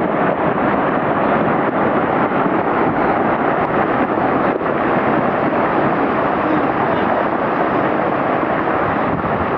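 Rockslide: a steady, dense rushing of rock and debris pouring down a mountainside, with no separate impacts standing out.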